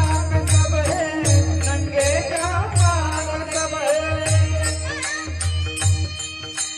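Devotional kirtan singing: a solo voice holding and bending long ornamented notes over a steady harmonium drone, with deep pakhawaj drum beats and the regular clash of small hand cymbals (taal) keeping a steady beat.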